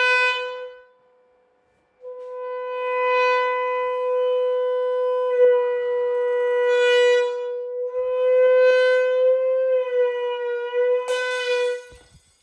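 Loud, distorted steady tone of about 505 Hz, the wine glass's resonant frequency, blasted from a loudspeaker through a tube at the glass. It cuts out about a second in and comes back a second later; near the end the pitch wavers and a sharp crack sounds as the glass breaks, and the tone stops.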